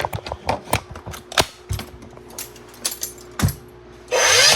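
Plastic clicks and knocks of a battery pack being fitted into a Craftsman cordless nailer, then near the end a loud whirring burst of under half a second as the nailer's motor runs.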